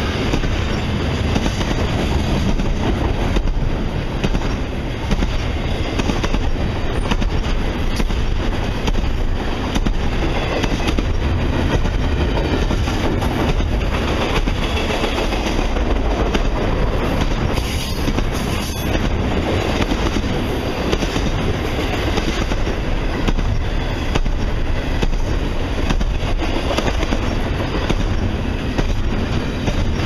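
Double-stack container freight cars rolling past close by: a steady, loud rumble of steel wheels on the rails, with a constant clicking as the wheels cross rail joints.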